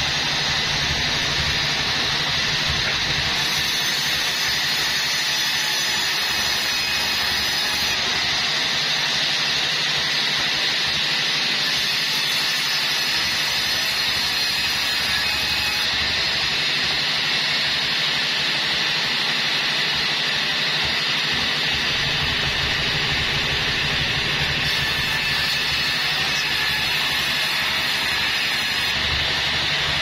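Bandsaw mill running steadily, its band blade sawing lengthwise through a log.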